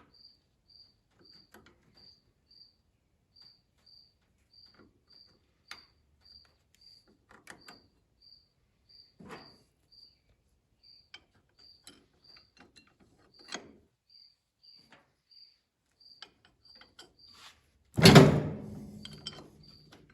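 A cricket chirping steadily in a regular rhythm, over scattered light metallic clicks and clinks of hand tools, bolts and springs being fitted to a baler's knotter brake. Near the end comes one loud metal clank that rings briefly.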